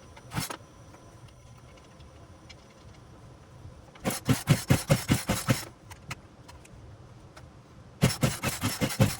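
Poulan Pro 42 cc two-stroke chainsaw being pull-started: two hard pulls on the recoil starter about four seconds apart, each a quick run of cranking strokes, and the engine does not catch. A short knock comes just after the start.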